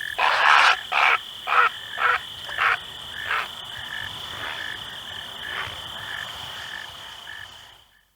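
Great blue heron giving a loud, harsh croak, then a series of about five shorter croaks that grow fainter. A steady high tone and short regular chirps run underneath.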